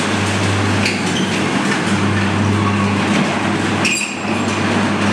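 Corrugated metal roller shutter rolling up, a continuous rattling clatter over a steady low hum.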